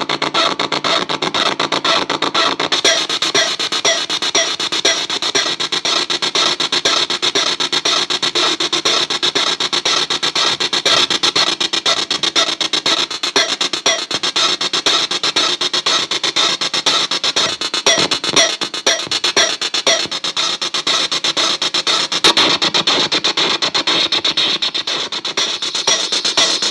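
Glitchy electronic noise from a circuit-bent Korg DDD-1 drum machine patched with a digital 'manipulator' effect: a dense, very rapid chatter of clicks and buzzing tones in a repeating pattern.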